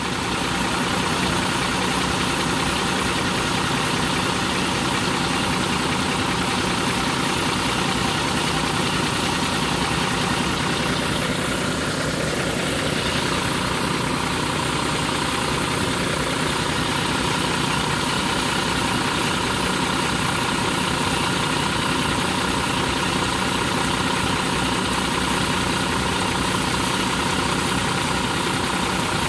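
Rear-mounted diesel engine of an intercity coach idling steadily, with its engine hatch open.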